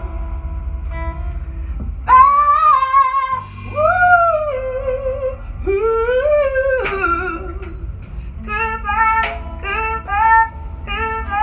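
Live band music: a woman sings long, wavering notes over electric bass and electric guitar, and in the last few seconds the melody breaks into a run of short, repeated notes.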